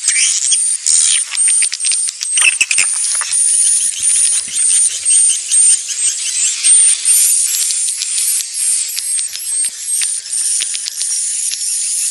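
Swiftlet courtship calls: an unbroken stream of short, high chirps and buzzy clicking trills, several a second. This is the lure call played at swiftlet houses to draw birds in to nest.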